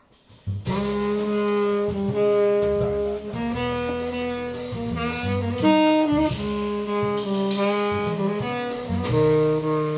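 A jazz trio of saxophone, double bass and drums starts playing together about half a second in. Long held saxophone notes sound over a moving bass line.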